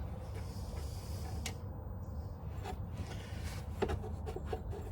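A few faint, light clicks and taps of small metal parts being handled while a loosened nut is worked free by hand, over a steady low hum.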